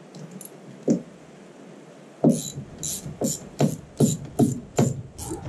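Socket ratchet wrench working a nut on a mower roller's end bracket, clicking in quick back-strokes about three times a second from a couple of seconds in, after a single click near the start.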